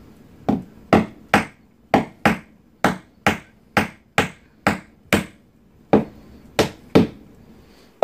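Claw hammer tapping glued 1/4-inch wooden dowel pegs flush into drilled-out hinge screw holes in a wooden door jamb: about fourteen sharp strikes, roughly two a second, with a short pause about five seconds in.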